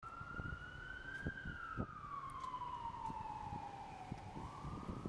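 An emergency vehicle siren in a slow wail. Its pitch climbs a little, falls steadily for about three seconds, then starts rising again near the end. Low city street rumble and a few knocks run underneath.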